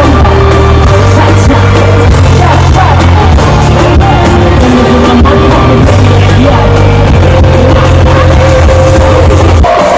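Loud live concert music over a PA system, a heavy bass line under a singing voice, heard from the audience.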